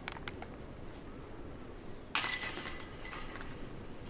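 A disc golf putt striking the metal chains of the basket about two seconds in: a sudden jangle of chains with ringing tones that fade over about a second, the sound of a putt caught for a birdie. A few faint clicks come before it.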